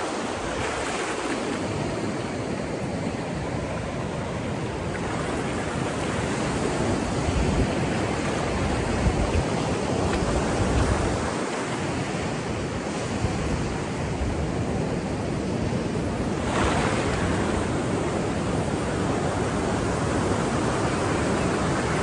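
Pacific Ocean surf breaking and washing up a sandy beach in a steady rush, with a louder wash of surf about three-quarters of the way through. Gusts of wind rumble on the microphone.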